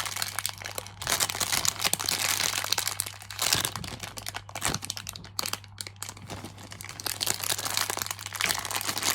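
Plastic packaging crinkling and crackling irregularly as it is handled.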